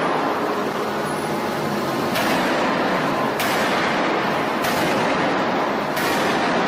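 Heavy hydraulic forging hammer working a red-hot steel billet: a loud, steady industrial din with a sharp strike about every second and a quarter, four blows in all.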